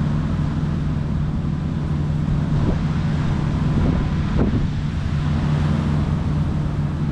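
Steady low rumble of road traffic, with wind noise on the microphone.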